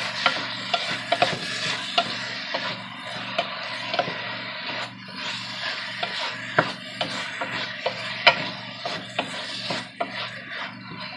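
Wooden spoon stirring chicken pieces with garlic and onions in a pot, knocking and scraping against the pot at an irregular pace. The meat sizzles faintly in the hot oil underneath.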